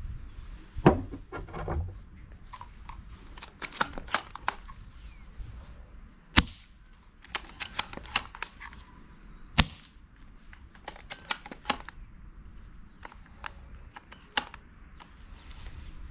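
Silverback TAC-41P airsoft bolt-action sniper rifle fired without a suppressor: three sharp shots several seconds apart. Between the shots come bursts of metallic clicking as the bolt is cycled.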